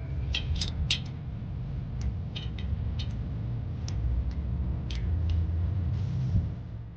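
Irregular metallic clicks and ticks from hand tools working on a brake caliper, about a dozen spread unevenly, over a steady low hum.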